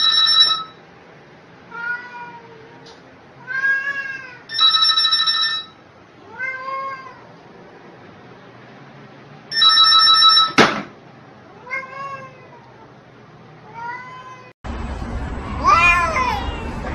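A telephone rings in three short bursts about five seconds apart, and a cat meows several times between the rings. A sharp click follows the third ring. Near the end a different cat gives one long, wavering yowl over outdoor background noise.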